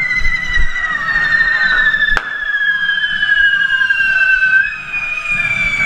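Hand-held spark-spraying correfoc fireworks hissing, with a loud whistle that slides slowly down in pitch; a second whistle takes over a little higher near the end. A single sharp bang cracks out about two seconds in.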